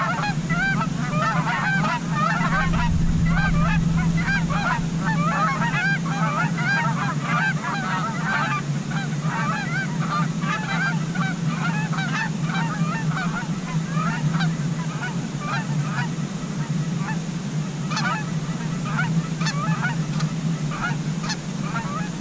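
Flock of Canada geese honking: many overlapping honks, dense at first and thinning out in the second half. A steady low hum runs underneath.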